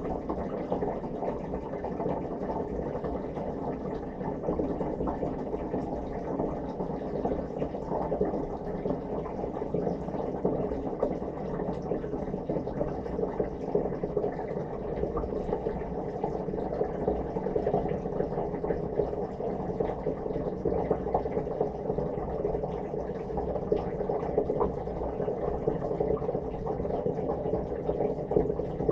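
Dishwasher running its wash cycle, heard from inside the tub: the pump's steady whir under water spraying and splashing continuously, with small scattered ticks of spray hitting surfaces.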